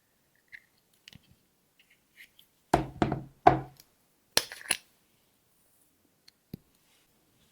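Small hard objects handled on a table: two loud knocks close together about three seconds in, then a pair of sharp clicks, with a few faint taps and clicks around them.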